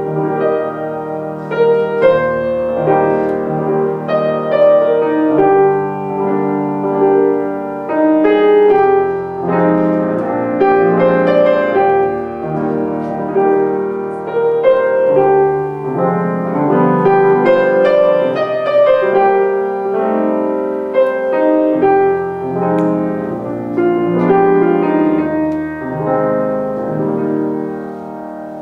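Solo grand piano played without a break, many notes struck in quick succession and left to ring over one another.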